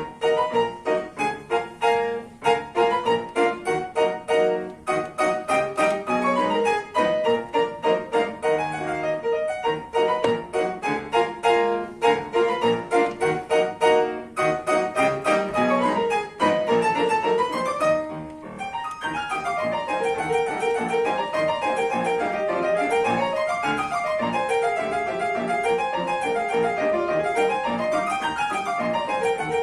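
Piano playing: crisp, detached notes and chords for the first eighteen seconds or so, then, after a brief pause, a continuous flowing passage of runs rising and falling in waves.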